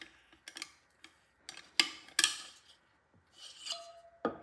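Metal camera fixture plate of an underwater camera housing clicking and rubbing as it is pressed out of its locking mechanism and slid off its pins. Several sharp clicks, the two loudest about two seconds in.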